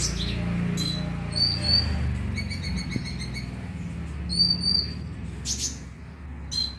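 Konin (kolibri ninja) sunbird calls: short, high, thin chirps and sharp notes, with a rapid trill about two and a half seconds in. A steady low hum runs underneath.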